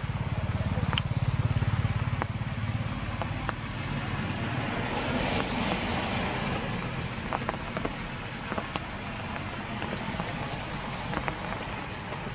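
Heavy rain falling: a steady hiss with scattered drips and patters. A low rumble sits under it in the first two seconds, and the rain hiss swells around the middle.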